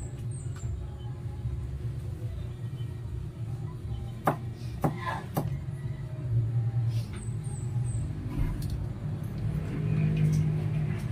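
A kitchen knife chopping bamboo shoots on a plastic cutting board: three sharp knocks in a row about four to five and a half seconds in, over a steady low hum. A few faint high chirps come and go.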